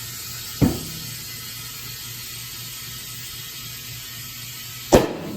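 Compressed air hissing into a tire through a valve stem with its core removed. Two sharp pops, about half a second in and near the end, as the tire beads snap onto the rim and seat.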